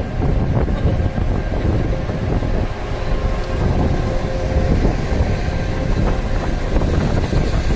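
Wind rushing and buffeting through an open rear car window while the car drives, a steady heavy rumble of wind on the microphone.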